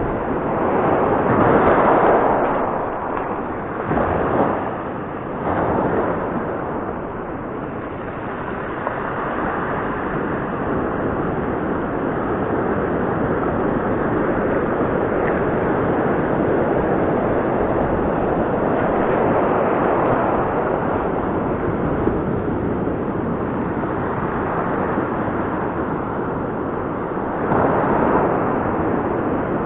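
Sea surf breaking and washing up over a dark gravelly beach close to the microphone: a continuous rush of water with louder surges about 2 seconds in, again around 4 to 6 seconds, and near the end as a wave breaks right in front.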